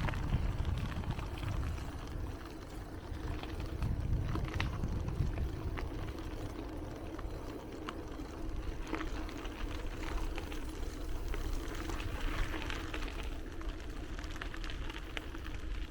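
Riding a bicycle: a steady low rumble of wind on the microphone and tyre noise on the path, with a faint steady hum and scattered small clicks and rattles.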